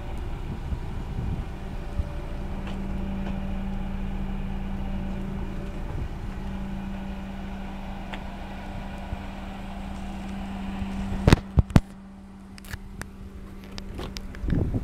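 Wind rumbling on the microphone over a steady low hum. About eleven seconds in come three sharp clicks, then a few lighter clicks, and near the end the Nissan Bluebird Sylphy's rear door handle is pulled and the door unlatches with a thud.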